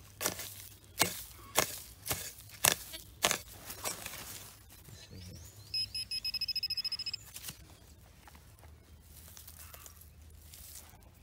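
A digging tool chops into turf and soil about six times, once every half second or so. About six seconds in, a handheld metal-detecting pinpointer gives a rapid run of high beeps for about a second and a half, signalling a metal target close by in the hole.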